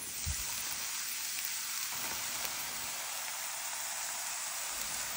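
Steady sizzling hiss with a soft low thump about a third of a second in.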